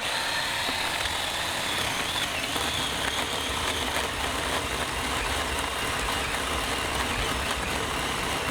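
Ryobi 18-volt 10-inch cordless chainsaw running steadily, its electric motor and chain giving a high whine over a rushing noise, the motor restarted after being left to cool down from overheating.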